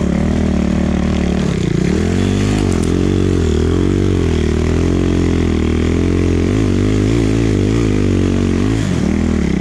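Enduro motorcycle engine being ridden through snow, its revs rising and falling over and over as the throttle is worked, with quicker wavering near the end.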